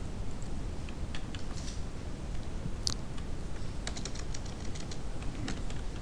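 Computer keyboard typing: irregular keystrokes as a command is entered at a command prompt, with a quick run of keys about four seconds in.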